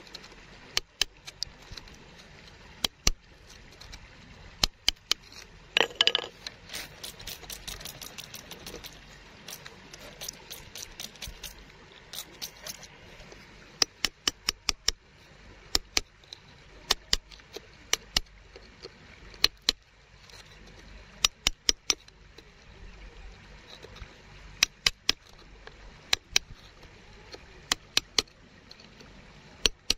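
Sharp clicks and taps of hard stone and tool against stones while a stone is dug out of wet gravel, often in quick runs of two to four. There is a short noisy burst about six seconds in, followed by a couple of seconds of fine crackle.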